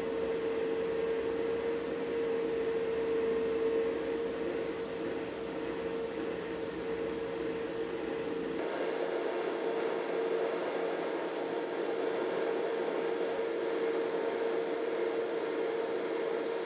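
Saw-Ray magnetic saw switched on and running steadily: a constant hum with a single steady mid-pitched whine over a hiss. The sound shifts slightly about eight and a half seconds in, with less low rumble.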